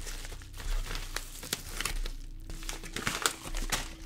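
Bubble-lined kraft padded mailer being handled and opened: irregular crinkling and rustling of the plastic bubble lining and paper, with a brief lull about halfway.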